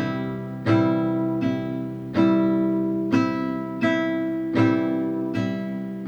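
Acoustic guitar strummed slowly, eight strums about three-quarters of a second apart, each chord ringing on until the next.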